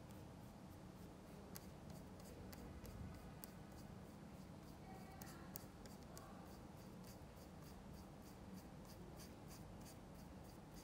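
Paintbrush working oil paint on canvas: a faint run of short, scratchy strokes, several a second.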